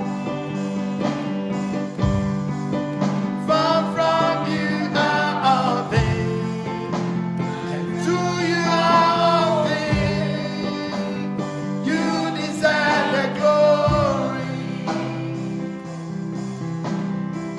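Slow gospel worship music: held chords with a low beat about every four seconds, and a wordless sung melody rising and falling over them in three phrases.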